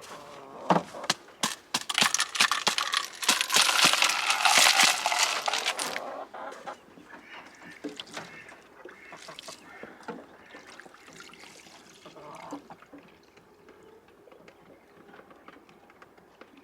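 Domestic ducks and chickens calling, loudest in a raspy burst of a few seconds near the start, mixed with knocks and clatter of water bowls being handled.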